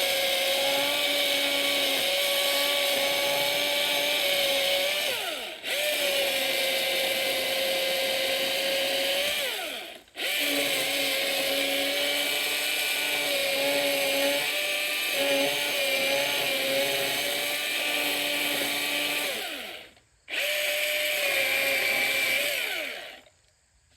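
Milwaukee battery-powered chainsaw running in four long bursts, a steady high motor whine with the chain cutting wood. Each time the trigger is released, about five, ten and twenty seconds in, the motor spins down with falling pitch and then starts again at once; it stops for good shortly before the end.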